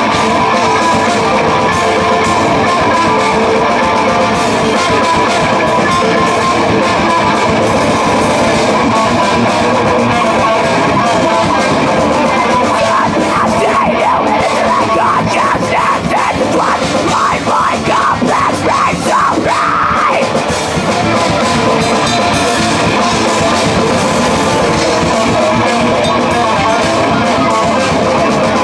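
A heavy metal band playing live, loud and dense: distorted electric guitars, electric bass and drum kit. Around the middle comes a run of fast-picked notes, ending on a note that rises in pitch.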